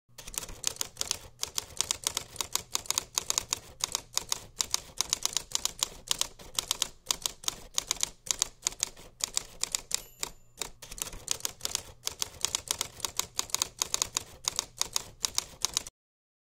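Typewriter keys clacking in a rapid, uneven run of strikes that stops abruptly near the end.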